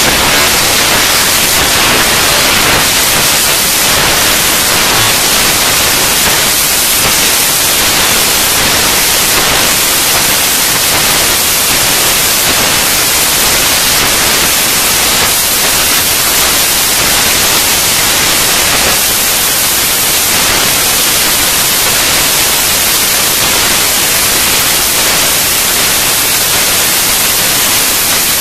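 Loud, steady static hiss like white noise, even and unchanging, strongest in the high range, with no other sound in it.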